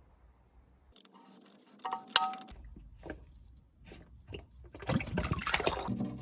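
Metal tools and parts clinking and rattling: a short ringing metal clink about two seconds in, scattered ticks, then a busier run of clicks and rattles near the end.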